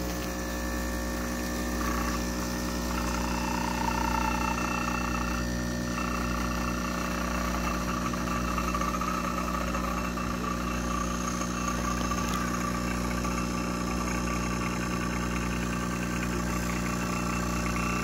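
De'Longhi Stilosa espresso machine's vibratory pump running with a steady hum while it pulls an espresso shot through the portafilter.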